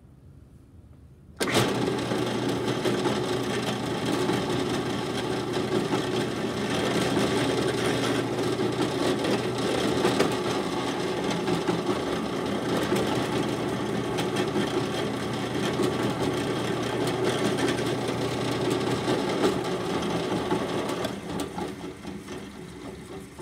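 Drill press switched on about a second and a half in, its motor running with a steady hum while a quarter-inch twist bit drills two dowel holes halfway into a wooden board; the motor is switched off and winds down near the end.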